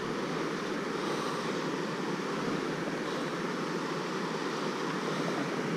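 Steady rushing of river water pouring over a weir, with some wind on the microphone.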